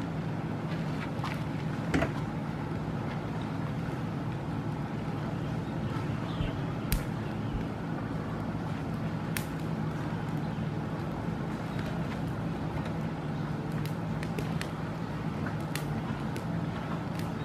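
Wood campfire crackling, with a few sharp pops scattered through, over a steady low hum.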